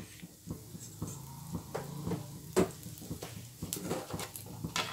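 Whole spices, cashews and green chillies frying lightly in hot oil in a non-stick pan, crackling with scattered small pops over a low steady hum.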